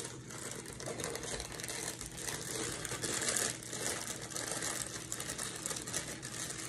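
Plastic cake-mix bag crinkling as dry devil's food cake mix is poured and shaken out of it into a stainless steel mixing bowl: a continuous fine rustle of small clicks, busiest about halfway through.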